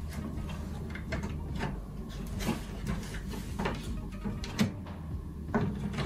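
Plastic clicks and knocks from the turbo brush head of a Grundig cordless vacuum as its housing and parts are handled and pried apart by hand. About six separate knocks, the loudest a little past three-quarters of the way through.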